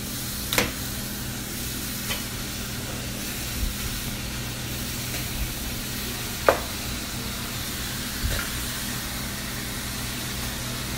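Chunks of young camel meat sizzling as they go into a large cooking pot, with a steady hiss and a few sharp knocks against the pot, the loudest about six and a half seconds in.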